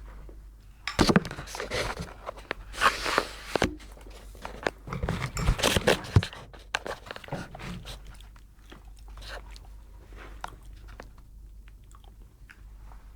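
Crunching and crackling close to the phone's microphone, someone biting and chewing food, loud in clusters over the first six seconds or so, then fainter scattered clicks.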